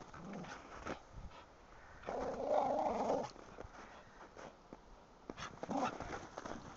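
A dog growling in play, one long rough growl of about a second a couple of seconds in and a shorter one near the end, over short scuffs and crunches as it rolls and digs in the snow.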